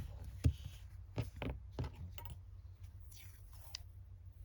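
A few light, irregular clicks and taps of craft supplies being handled on a desk, over a faint steady low hum.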